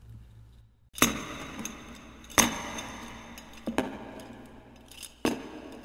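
Four sharp clinks, about a second and a half apart, each ringing briefly as it fades.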